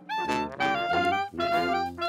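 A small street band of brass and reeds plays a tune together. A sousaphone carries the bass under a clarinet and other horns. The melody moves in short phrases, with brief breaks between them.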